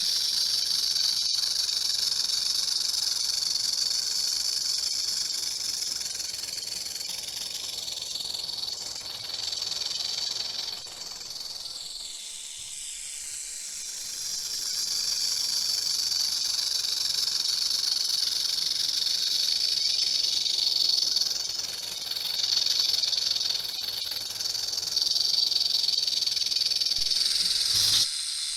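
A rattlesnake shaking its tail rattle in a continuous high-pitched buzz that swells and fades, weaker for a few seconds near the middle and dropping off suddenly near the end. The buzz is processed as 8D audio, panned around the listener.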